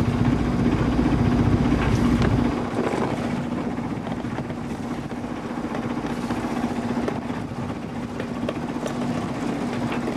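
Sailing yacht's inboard diesel engine running steadily under way, a constant drone over the hiss of wind and water. A heavier low rumble in the first two and a half seconds stops suddenly.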